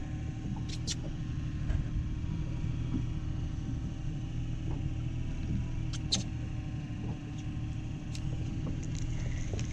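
Boat engine running steadily with a low, even hum, with a few brief high-pitched ticks over it about a second in and again around six seconds in.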